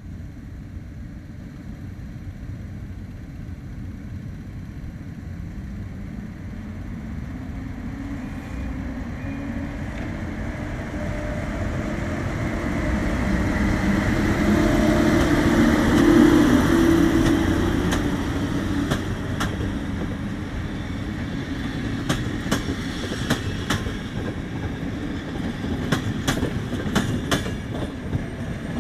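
PKP Intercity EP07 electric locomotive hauling an InterCity passenger train past a station platform. The rumble grows as the locomotive draws near, is loudest with a steady hum as it passes about halfway through, then the coaches roll by with repeated clicks of wheels over rail joints.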